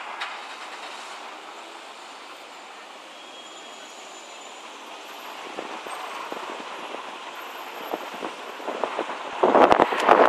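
Steady outdoor street hiss. In the second half it is overlaid with irregular crackling and knocking on the phone's microphone, and loud wind buffeting and handling noise come near the end.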